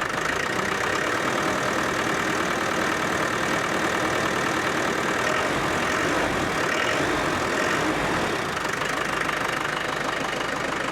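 Land Rover Defender 110's 300Tdi 2.5-litre four-cylinder turbodiesel engine running steadily at idle, with the turbo's whine audible, which the owner takes as a sign of the turbo working better now that the boost line and wastegate hoses are renewed.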